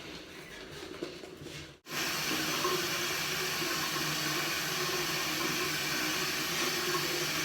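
Water running steadily from a tap into a sink, starting abruptly about two seconds in after a faint, quiet stretch.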